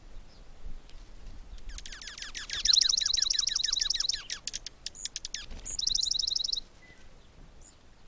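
Small songbirds singing: a run of quick downward-sweeping notes overlapped by a rapid, high, buzzy trill about two seconds in, a few loose notes, then a second short trill near the middle.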